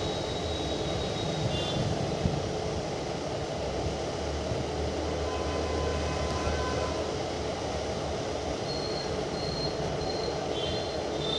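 A train running on the track: a steady, even rumble with faint high-pitched tones near the start and again near the end.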